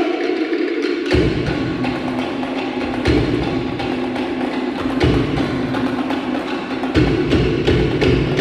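Cook Islands drumming: fast, dense strokes on wooden slit drums, with a deep bass drum that comes in about a second in and swells again about every two seconds.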